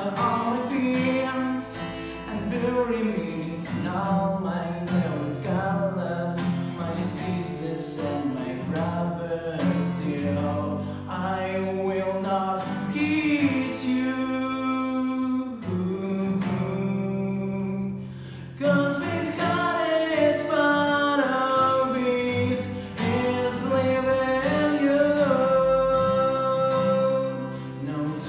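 A singer with strummed acoustic guitar accompaniment, with a brief dip about two-thirds of the way through before the voice comes back in.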